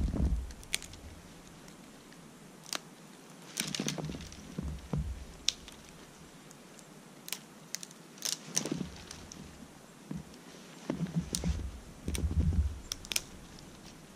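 Small twigs being snapped off snowy brush by hand to gather tinder: scattered sharp cracks and rustles, with a few low muffled thumps in between.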